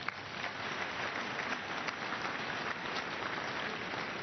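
Congregation applauding: many hands clapping together in a dense, steady patter that starts right at the beginning.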